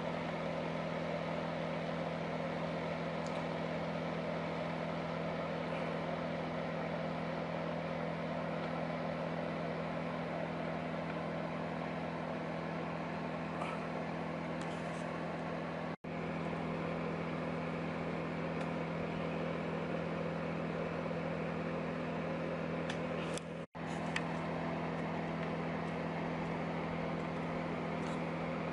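Steady electric hum with an even rushing noise, unchanging apart from two brief dropouts.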